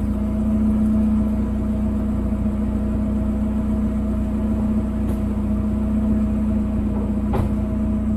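Steady mechanical running with a strong even hum from the bagged Chevrolet S10 pickup, with a single sharp click about seven seconds in.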